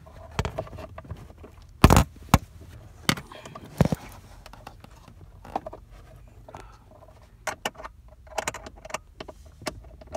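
Irregular clicks and knocks of a small hand tool working at the mounting bolts of a Jeep heater actuator: a few sharp, loud knocks in the first four seconds, then fainter scattered clicks and light rattling.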